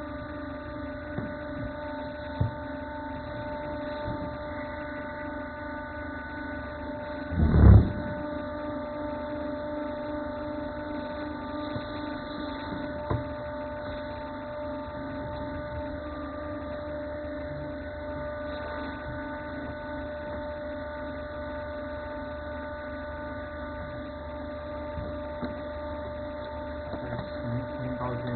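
Honggang 30-ton hydraulic cutting press running idle, its pump motor giving a steady hum, with one loud thump about seven seconds in and a couple of light clicks.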